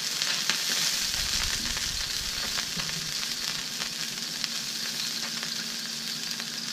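Water steaming and sizzling on a hot Blackstone griddle top under a stainless melting dome, around a sausage patty with cheese slices. A steady hiss with scattered crackles: the trapped steam is melting the cheese.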